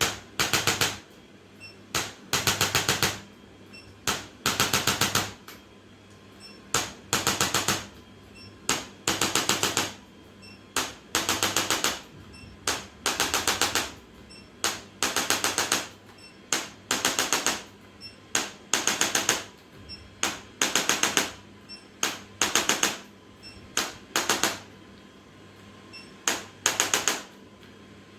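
Rapid mechanical tapping in bursts about a second long, repeating about every two seconds, with a single sharp click just before most bursts.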